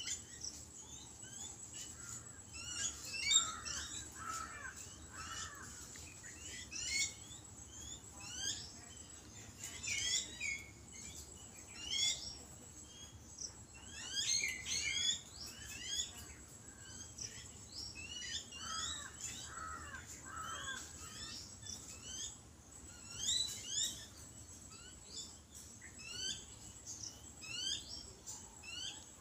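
Babblers calling: bursts of short, squeaky chattering notes every second or two, with a few lower, hoarser calls mixed in.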